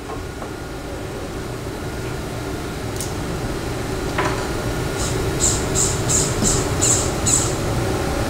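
Steady machine-shop hum that slowly grows louder, with a couple of single clicks and then, about five seconds in, a quick run of about seven short high hisses over two seconds.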